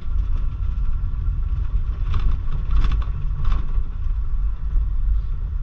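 Car engine and tyres rumbling inside the cabin while driving slowly along a rough, potholed street.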